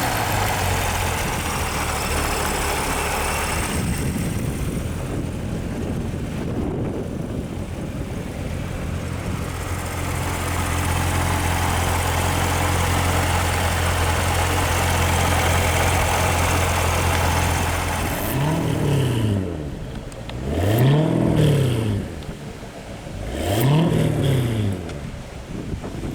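2019 Chevrolet Corvette Z06's supercharged 6.2-litre V8 idling steadily, then blipped three times, each rev rising and falling back, about two and a half seconds apart, near the end.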